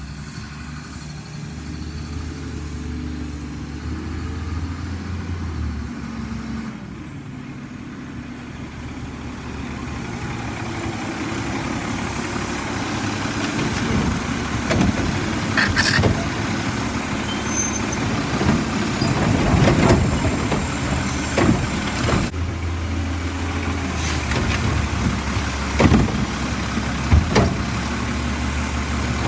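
Automated side-loader garbage truck: its diesel engine rumbles and grows louder as it approaches. From about halfway in, the hydraulic arm grips and lifts a plastic recycling cart to dump it, with repeated clanks and knocks over the engine.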